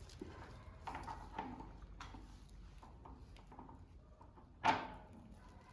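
Light knocks and clicks of workshop tooling and strut parts being handled, with one sharper, louder knock near the end.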